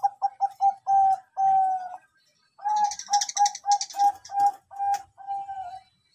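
A Bangkok-type perkutut (zebra dove) cooing: two phrases of soft rapid staccato coos, each ending in longer drawn-out notes, with a pause of about half a second between them. A brief high chirping runs behind the second phrase.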